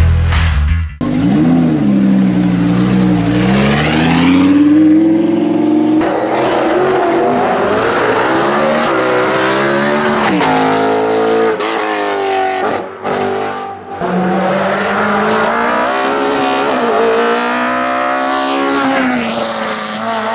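Hillclimb race car engines at full throttle, the pitch climbing and dropping again and again through upshifts, in several short clips of different cars one after another. About a second in, a music track cuts off and the engine sound takes over.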